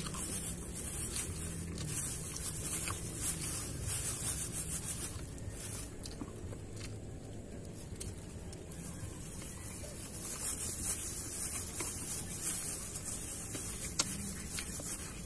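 Plastic bag crinkling and rustling in hand, busy in the first few seconds, quieter in the middle and busy again near the end, over a steady low rumble.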